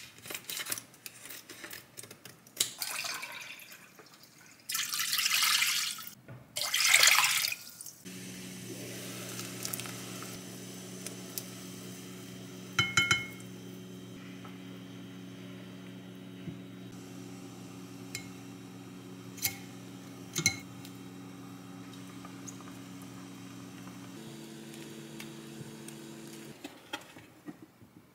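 Broth poured from a snipped-open pouch into a pot, in two splashing pours. Then a steady hum from the cooktop with a few sharp taps of a wooden spoon on the pot; the hum steps up in pitch near the end and stops.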